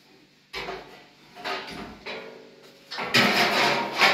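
Scraping and knocking as a garden hose and a round container are handled on a tiled floor: two short scrapes, then a longer, louder scraping clatter about three seconds in.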